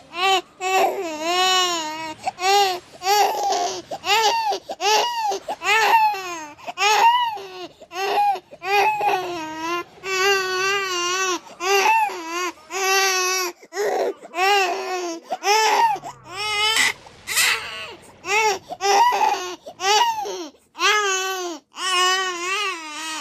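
Baby crying hard: a long string of short, high wails, each rising and falling in pitch, one after another with quick breaths between.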